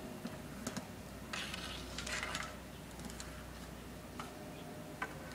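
A few scattered light clacks of a street-hockey stick striking a ball and the asphalt, with two short rushes of noise around the middle.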